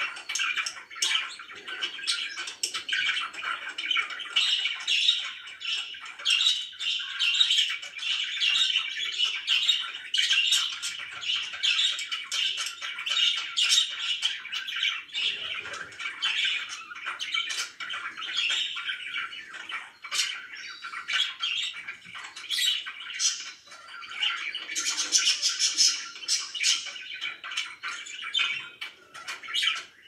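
Several pet budgerigars chattering and warbling without pause, a dense stream of quick chirps, with a brighter run of high chirps about 25 seconds in.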